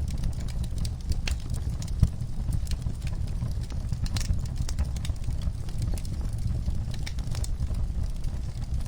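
Wood fire crackling in a fireplace: irregular sharp snaps and pops over a steady low rumble, with one louder pop about two seconds in.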